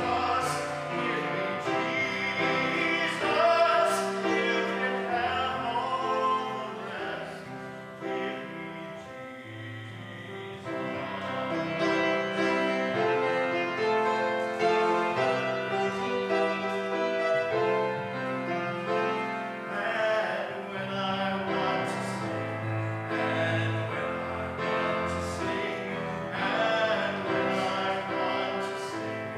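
Grand piano accompanying a solo singer with vibrato in a slow sacred song.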